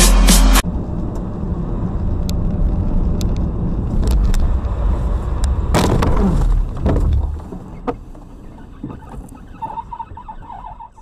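Road and engine noise from a car dashcam. About six seconds in there is a loud sudden rush, falling in pitch over about a second, as a dark sedan passes very close alongside. After that the road noise is quieter, with a short pulsing high tone near the end.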